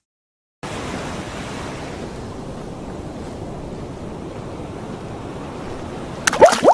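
Ocean surf: steady rushing of breaking waves and foaming whitewater, starting about half a second in. Near the end a sudden louder splash and bubbling breaks in.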